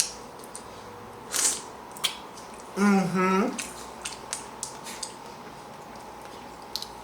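Eating sounds: scattered small clicks and crackles of shrimp shells being handled and eaten, with a short noisy slurp-like sound about a second and a half in. About three seconds in comes a brief hummed "mmm" of voice.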